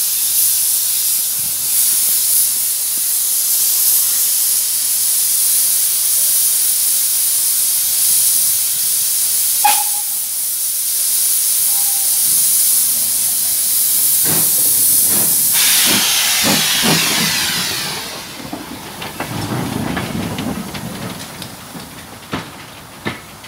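Steam tank locomotive No. 1310 hissing loudly as steam blows from low down at its cylinders, the open drain cocks of a locomotive setting off. The hiss falls away about three-quarters of the way through as the engine pulls off, with a few knocks, a low rumble and two sharp clicks near the end.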